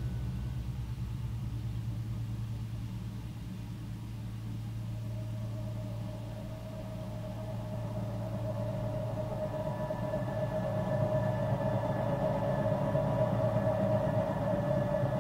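Synthesizer ambient music: a low, pulsing drone with a steady higher tone that fades in about five seconds in and grows louder.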